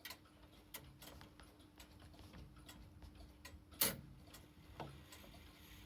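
Mechanical grandfather clock movement (Urgos UW32002) ticking softly, with one louder click a little past halfway.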